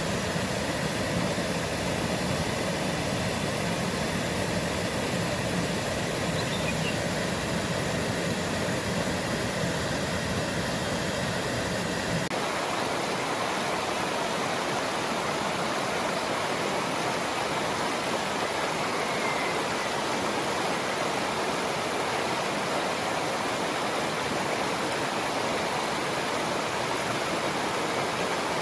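Water rushing steadily over rocks: first a small waterfall pouring into a pool, with more low rumble, then, about twelve seconds in, a shallower rocky river with a thinner, hissier rush.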